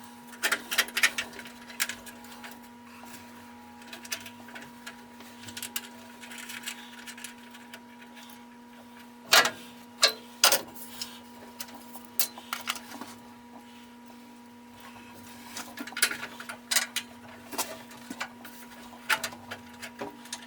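Irregular clicks and knocks over a steady hum, with two louder sharp clacks about nine and ten seconds in.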